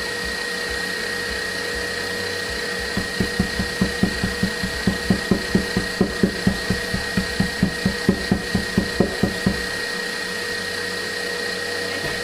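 An electric mixer's motor runs at a steady pitch, whipping a cream mixture. For about six seconds in the middle, a run of regular low thumps, about four a second, sounds over it.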